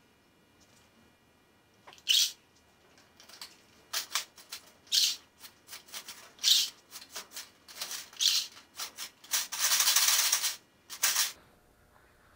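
Hand tool scraping and trimming at a wing-tip light's mounting ring, in a dozen or so irregular short rasping strokes with one longer stroke near the end, as the material inside the ring is cut back to about 2 mm so the light cover will fit.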